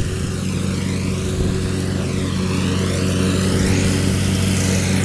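Riding lawn mower engine running steadily nearby, a constant low drone whose higher tones sweep up and down as the mower moves.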